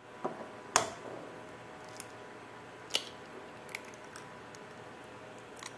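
Raw egg cracked into a ceramic bowl: a few short sharp knocks and clicks as the shell is struck and pulled apart by hand, the loudest knock under a second in.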